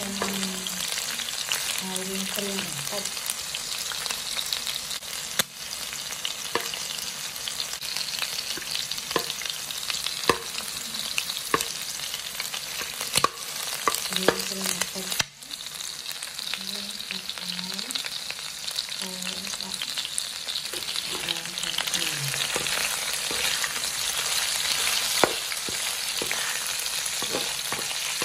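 Meat, garlic and ginger sizzling in hot oil in a black pan while a metal spatula stirs them, with a steady hiss and scattered sharp scrapes and clicks of the spatula against the pan.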